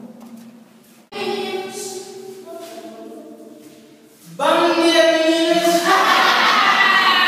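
A group of voices singing together in long held notes. A quieter phrase starts about a second in, and a louder, fuller chorus comes in after about four seconds.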